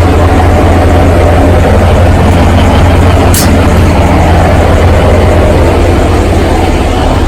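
Diesel engine of an Alishan Forest Railway train running steadily, a loud, even low hum. A brief sharp click comes about three and a half seconds in.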